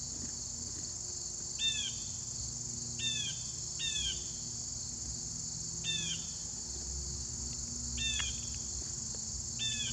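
A steady high-pitched drone of insects, with a bird giving a short falling call six times over it.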